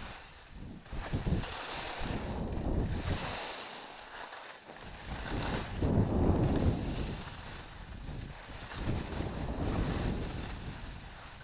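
Wind rushing over a camera microphone while skiing, mixed with the scrape of skis on hard-packed snow. The rush swells and fades with speed and turns, dropping off briefly about four seconds in.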